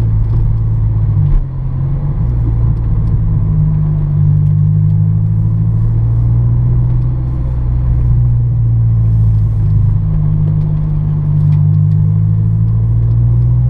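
Honda S2000's four-cylinder engine running steadily while driving, a loud low drone, with a brief dip in the engine note about a second and a half in.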